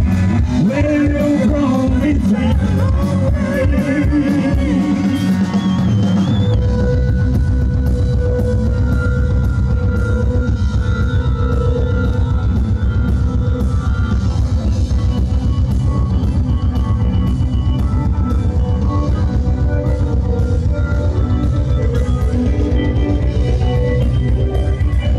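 Loud rock music. A drum kit comes in about six seconds in and keeps a fast, steady beat.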